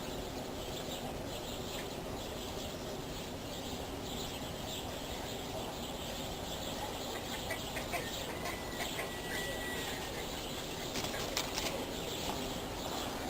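Steady, quiet background hiss with no chainsaw running. A faint, thin whistle holds for about two seconds partway through, and a few light clicks follow near the end.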